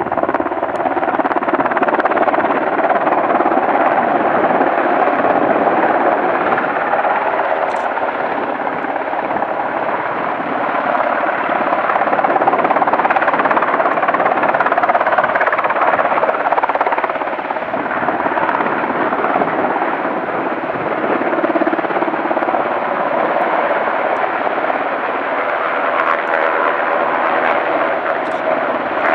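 UH-60 Black Hawk helicopter hovering low over water while dipping its long-line water bucket: steady rotor and turbine noise throughout.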